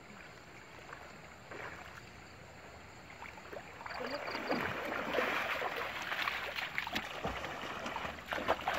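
Water splashing and sloshing as people wade and swim through a shallow muddy river. It grows louder about halfway through, as someone wades through the water.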